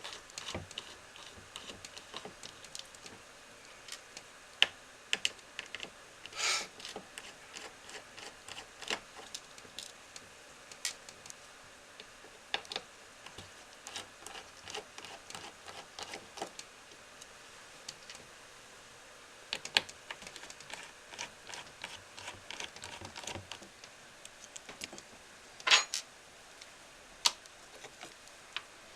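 Star-bit (Torx) screwdriver taking the small screws out of a hard drive's control board: irregular light clicks and ticks of the bit in the screw heads and of small metal parts being handled, with a few louder taps.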